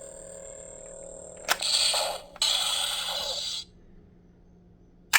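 Master Morpher toy's built-in speaker playing a morphing sound effect: a steady electronic tone, then about a second and a half in, a click and two hissing bursts of energy noise lasting about two seconds. A sharp click comes near the end.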